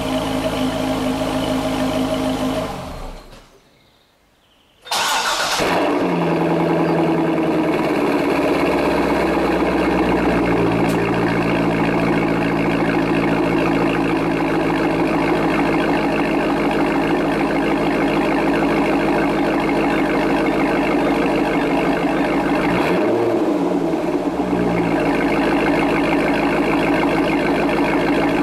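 Chevrolet Corvette C6's 6.0-litre LS2 V8 idling cold on its stock exhaust, which fades out; after a few seconds of near silence the engine is started cold through a Corsa Sport exhaust, catching suddenly at a fast idle whose pitch falls over the next few seconds before settling into a steady, deeper idle. About three-quarters of the way through the engine speed rises and falls briefly once.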